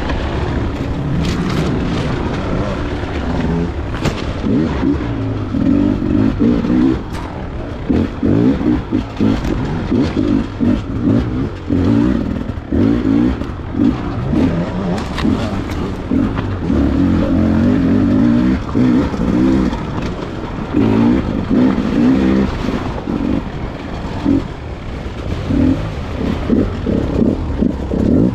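Beta 300 two-stroke enduro motorcycle ridden off-road, its engine revving up and falling back over and over as the throttle is worked.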